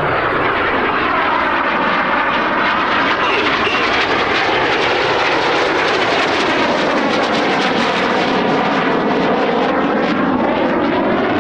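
Red Arrows BAE Hawk T1 jets making a low, fast pass: a loud, steady jet roar with a sweeping, phasing sound as the aircraft go by.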